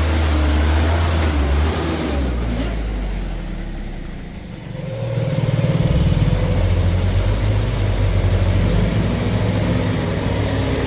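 Heavy truck's diesel engine labouring on a steep uphill grade: it runs loud and low, eases off about four seconds in, then revs back up hard.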